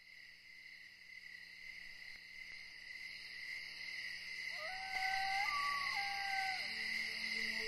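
Ambient opening soundtrack fading in: a steady high-pitched shimmer, with two sliding hoot-like notes about halfway through.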